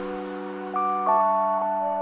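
Soft ambient music: held, overlapping notes, with new notes coming in about three-quarters of a second and again about a second in.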